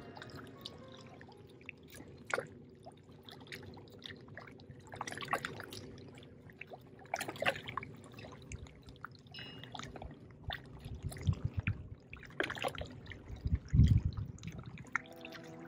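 Seawater lapping and trickling among flat shoreline rocks in calm shallows, with irregular small splashes and drips.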